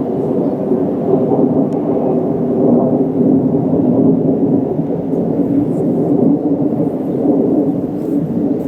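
KiYa 95 diesel track-inspection train running, a loud, steady low rumble.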